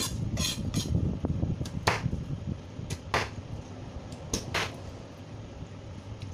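Chef's knife chopping cooked chicken on a cutting board: about eight sharp knocks of the blade striking the board at an irregular pace, stopping about five seconds in. A low steady hum runs underneath.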